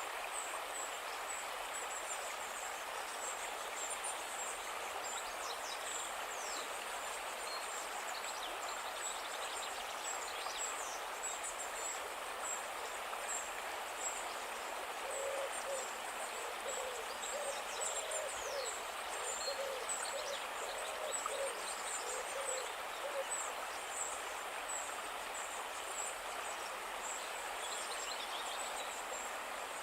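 Calm river flowing with a steady rush of water. Partway through, a run of about a dozen short, low, evenly spaced animal calls, and thin high chirps slide down now and then throughout.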